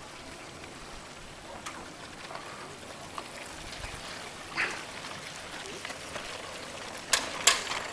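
Lake water lapping and trickling gently around sailboat hulls, with scattered light knocks and two sharp clicks near the end.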